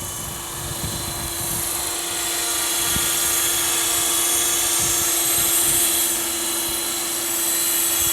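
Radio-controlled 500-size scale Little Bird helicopter running: a steady high whine from the motor with the rotor drone, building over the first couple of seconds and easing slightly near the end.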